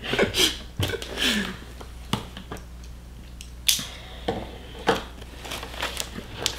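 Small knife slitting the packing tape on a cardboard box, then the box flaps being pulled open: scattered clicks, scrapes and cardboard rustles, with one sharper crack a little before four seconds in.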